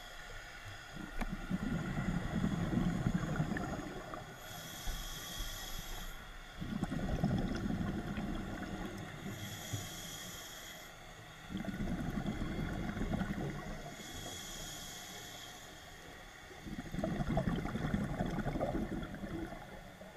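Scuba diver breathing through a regulator underwater: four low, bubbling exhalations of about two seconds each alternate with three shorter, high hissing inhalations, about one breath every five seconds.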